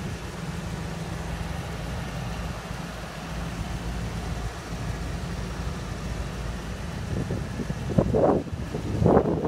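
Ford 460 big-block gas V8 of a 1997 F-Super Duty truck idling steadily with a low drone. Near the end, rough bursts of wind noise hit the microphone.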